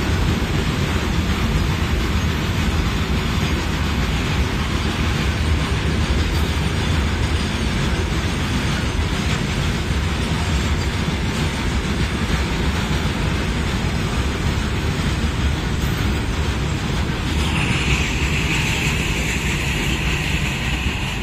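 Goods train of hopper wagons rolling past at close range: a steady rumble and rattle of wagon wheels on the rails. A high, steady whine joins in about seventeen seconds in.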